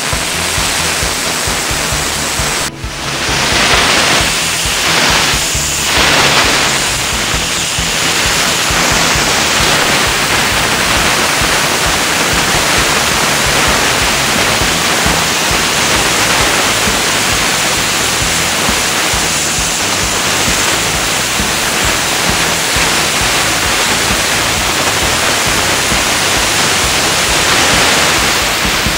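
Kärcher high-pressure washer jet blasting a panel to strip old lettering decals: a loud, steady hiss of spray with a low rumble underneath. The jet cuts out for an instant about three seconds in, then swells a few times before settling.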